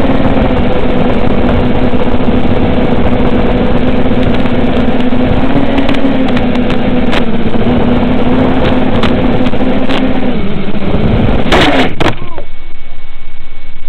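The 1750kv 2508 brushless motors and 7-inch two-blade props of an FPV quadcopter buzz with a steady tone under heavy hiss from the analog video link's audio. About eleven and a half seconds in, there are a few sharp clicks and the motor note falls away as the quad comes down and is disarmed, leaving only hiss.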